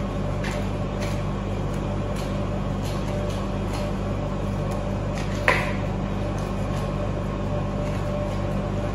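Soft, repeated sounds of white bread dough being kneaded by hand on a board, over a steady low machine hum, with one sharp knock about five and a half seconds in.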